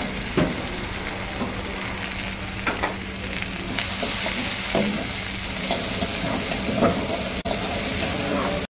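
Sliced onions sizzling as they fry in hot oil in a metal kadai, stirred with a wooden spatula that scrapes and knocks against the pan.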